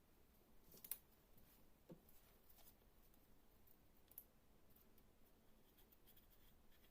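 Near silence with a few faint, short rustles and clicks of paper being handled and creased while folding origami.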